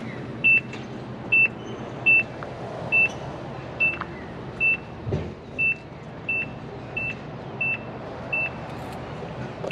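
Electronic template digitiser beeping as each point is recorded on the boat deck: a short, high beep about every three-quarters of a second, at slightly uneven intervals, over a steady low rumble.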